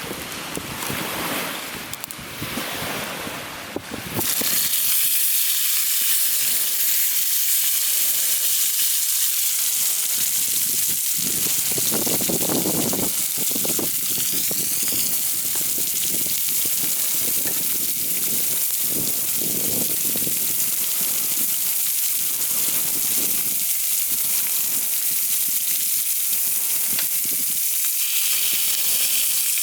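Gusts of wind on the microphone, then, about four seconds in, a sudden switch to a steady, loud sizzling hiss of food cooking on a hot pan.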